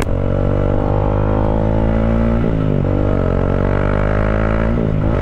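Bajaj Dominar 400's single-cylinder engine running through a decatted exhaust, with the catalytic converter replaced by a resonator and Akrapovic slip-on mufflers fitted, as the bike rides and accelerates. The exhaust note drops and climbs back about two and a half seconds in, and briefly again near the end, as the rider shifts up.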